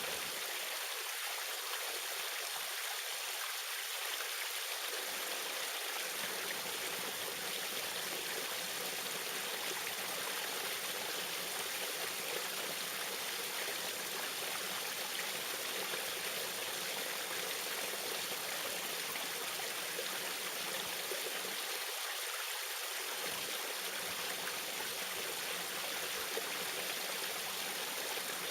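Small waterfall: water falling and splashing in a steady, unbroken rush.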